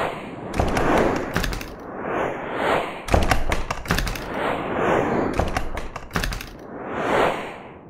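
Whoosh sound effects, each swelling and fading over about a second, alternating with bursts of rapid clicks and low thumps.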